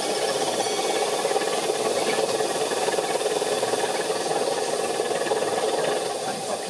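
5-inch gauge live-steam locomotive standing with steam up, giving a steady hiss of escaping steam.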